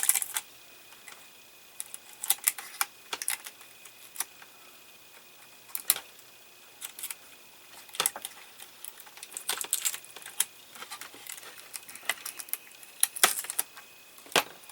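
Scattered light clicks and ticks, single and in short clusters, from small plastic model parts and wiring being handled and Scotch tape being pulled up off the wires.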